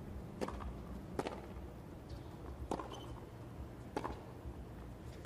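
Tennis ball struck back and forth by rackets in a rally, a sharp pop about every second and a half, over a low steady crowd and stadium background.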